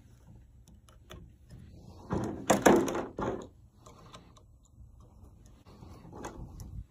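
Hands fitting small hoses into brass quick-connect fittings on an irrigation electric valve: clicks and rubbing of tubing, with a louder stretch of handling and scraping about two to three seconds in.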